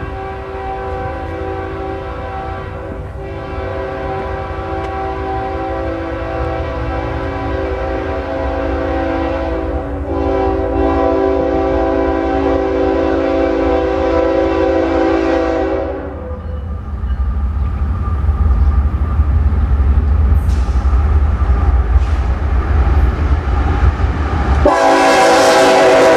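GE diesel freight locomotives (AC4400CW and ES44AC) approaching. The air horn sounds one long chord for about sixteen seconds, easing briefly twice. It stops, leaving a rising low engine rumble, then blows again loudly near the end as the lead units pass close by.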